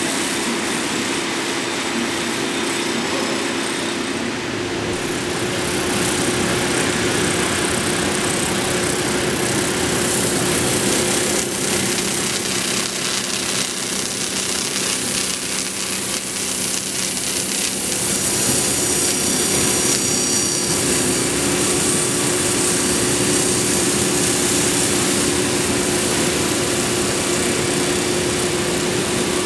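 Omag Blade5 CNC saw's diamond disc blade spinning and grinding into a stone block: a steady cutting noise with a constant hum underneath.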